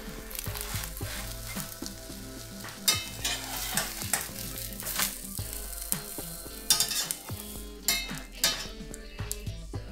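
Eggs and flatbread sizzling as they fry in a pan, with a few sharp clicks from the spatula and pan partway through.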